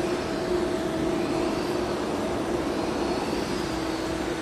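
CNC lathe running: a steady mechanical hum with a held low tone, and faint higher whines that rise and fall.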